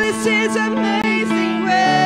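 Church worship team singing with electronic keyboard accompaniment. The voices move through a melodic line and settle onto a held chord near the end.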